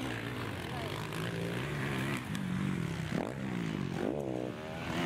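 Several motocross dirt-bike engines revving through a turn, their overlapping notes climbing and dropping as throttles open and close, with a couple of sharp pitch swings in the second half.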